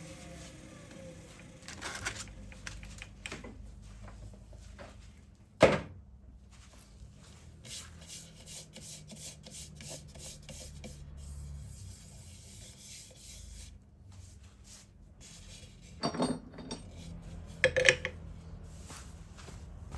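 Hand rubbing and handling of a walnut wood bowl. There is a loud sharp knock about six seconds in, a few lighter knocks, and two more clacks near the end.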